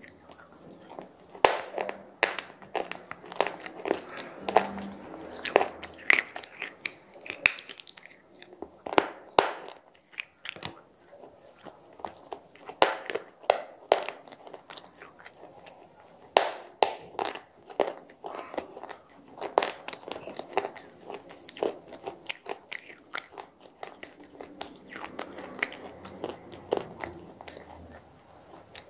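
Close-miked chewing of square slate pieces: many sharp, irregular crunches as the slate is bitten and ground between the teeth.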